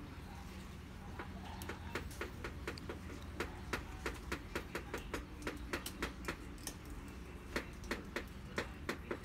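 A run of short, sharp clicks, roughly three to four a second and fairly even, starting about a second in, over a steady low hum.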